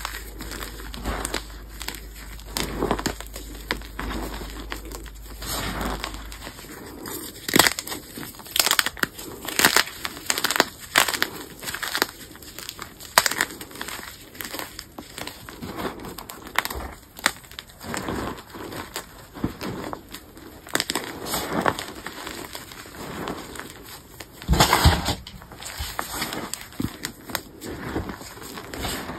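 Gym chalk blocks crunching and crumbling as fingers squeeze and crush them into loose chalk powder: irregular crisp crunches at an uneven pace, with the loudest crunch late on. The blocks stay hard and crunchy under a soft, crumbly coating of chalk paste.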